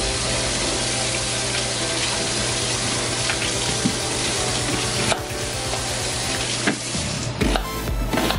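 Water at a rolling boil in a wok over a lit gas burner, a steady bubbling hiss, with a few knife strokes on a plastic cutting board. Music comes in near the end.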